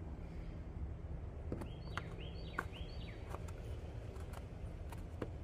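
A bird chirping three times in quick succession, about two seconds in, over a steady low outdoor rumble, with a few faint clicks scattered through.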